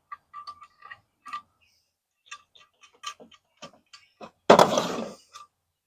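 A hand ratchet clicking in short, uneven runs as a nut on the engine block is backed off, then a louder metallic clatter about four and a half seconds in.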